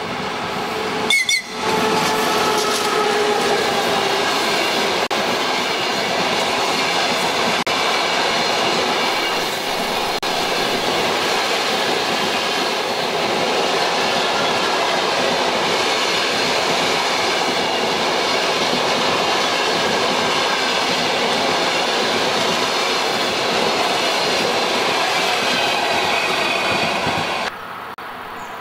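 A 2M62U two-section diesel locomotive passing close, its engine drone sagging slightly in pitch as it goes by, followed by its train of coaches rolling past with a steady wheel rumble and clickety-clack. There is a short sharp sound about a second in, and the sound drops abruptly near the end.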